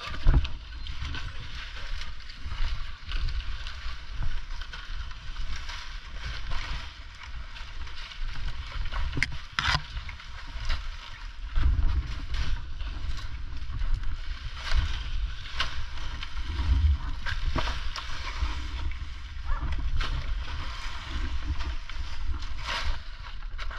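Dry palm fronds rustling and crackling as they are gathered and dragged by hand, over a low rumble on the helmet-mounted microphone.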